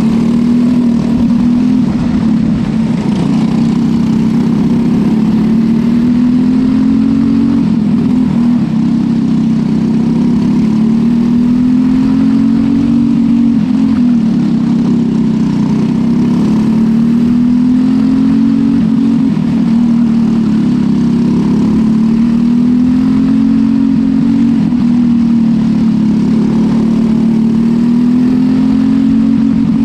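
Engine of a small winged dirt racing car, heard onboard at race pace, running loudly. Its pitch climbs, then drops back, over and over every five to six seconds as the car laps the short oval.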